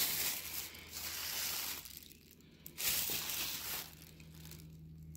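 Thin plastic grocery bag crinkling and rustling as it is pulled open around a packaged roast, in two spells with a short pause about two seconds in.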